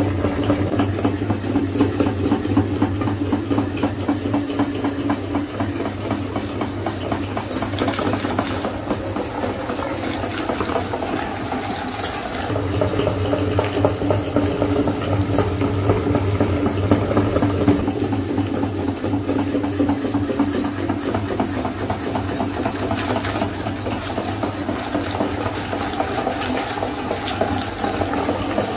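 Meat grinder running with a steady hum, over many small wet crackles as a soft mixture is forced out through the grinder plate; the hum drops out briefly about twelve seconds in.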